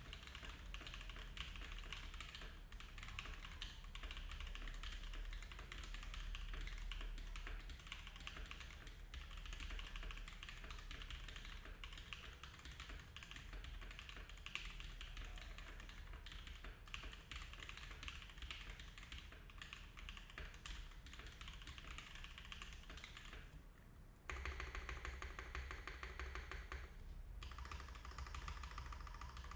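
Iron165 R2 custom mechanical keyboard with lubed and filmed SOTC switches on an aluminium plate, with no foam and GMK keycaps, being typed on in a steady stream of key clacks. After a brief pause near the end comes a faster, denser run of keystrokes.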